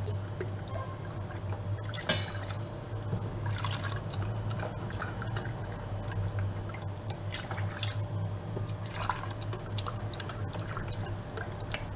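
Milk poured from a drinking glass into a stainless steel saucepan, splashing and dripping onto the dry flour, sugar and cocoa in repeated pours, over a steady low hum. A sharp knock about two seconds in.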